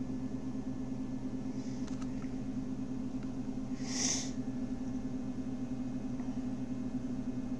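Steady low hum of room tone, with a short breathy hiss about four seconds in.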